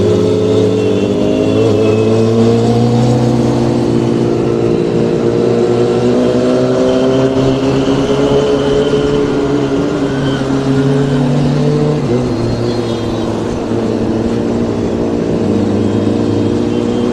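Vehicle engine running on the move, its note holding steady with slow, gentle rises and falls in pitch and a slight easing off about twelve seconds in.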